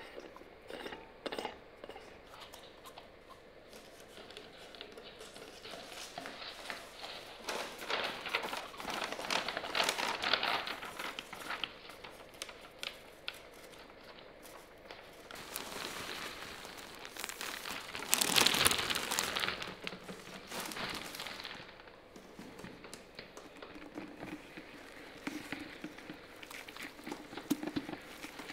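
Brown paper bag being handled: crinkling and rustling paper with small crackles, with one loud burst of crinkling about two-thirds of the way through.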